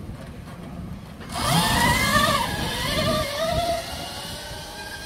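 Electric dirt bike launching away hard: a sudden whine that bends up and down comes in with a rush of noise about a second in, and eases off near the end as the bike draws away.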